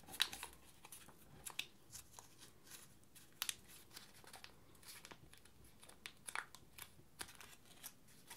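Folded dollar bill crinkling in the fingers as its bow wings are pinched and flared out: faint, irregular paper crackles.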